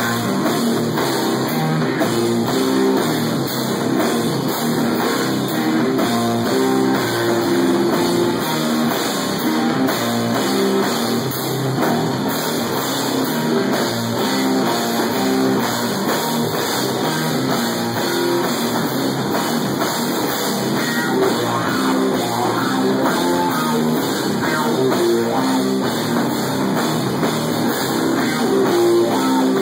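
Stoner-metal band playing live: loud, heavy rock with electric guitar and drum kit, running on steadily.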